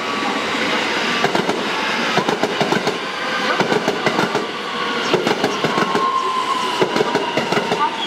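JR West electric train running through a station, its wheels clacking rapidly over points and rail joints. A steady whine comes in about halfway through and falls slightly in pitch.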